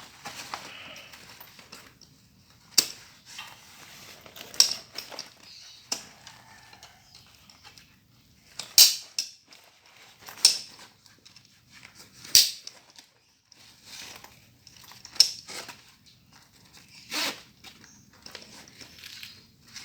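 A new waterproof waist bag and its packaging being handled while unboxed: rustling and crinkling, with a sharp crackle every couple of seconds.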